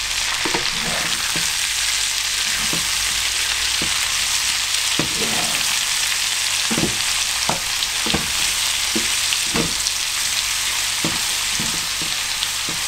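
Ground beef, zucchini and crumbled feta sizzling in a cast-iron skillet as a wooden spatula stirs and turns them, with a steady high hiss and short scrapes and knocks of the spatula against the pan roughly once a second.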